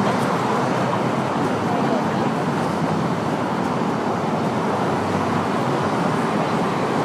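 Steady road traffic noise, an even rush of passing cars with no single event standing out.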